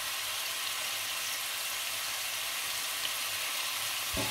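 Mutton pieces sizzling steadily in oil in an aluminium pot as they are browned (bhuna) for korma, the meat's own juices cooking off. Near the end a wooden spoon gives a short knock as stirring begins.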